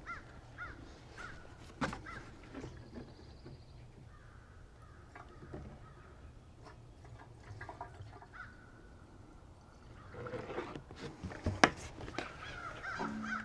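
Birds calling, with scattered knocks and clatter that grow busier near the end.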